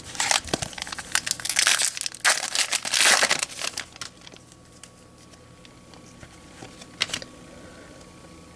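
Foil wrapper of a baseball card pack crinkling and tearing as the pack is ripped open, in a run of bursts over the first few seconds. After that it goes quiet, with one light click near the end.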